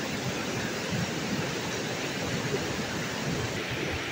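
Steady rushing of a fast-flowing stream.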